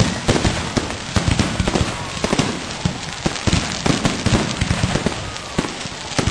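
Firecrackers going off in a rapid, irregular string of sharp bangs and crackles, many per second and with no pause.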